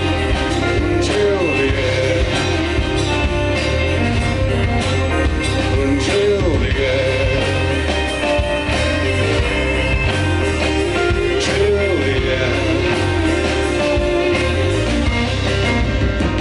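Live rock band playing, recorded close to the stage: guitars, bass and a drum kit, loud and steady.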